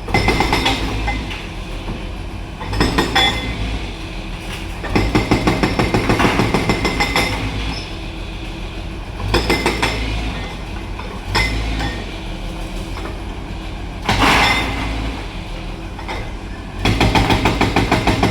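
Diesel engine of a JCB 3DX backhoe loader at work, running steadily and rising several times into louder stretches of rapid, even pulsing as it takes load, with metallic clinks and clanks from the machine.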